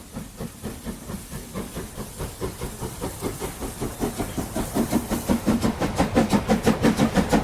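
Steam locomotive chuffing in a steady rhythm of several puffs a second, each puff a burst of hiss, growing louder throughout.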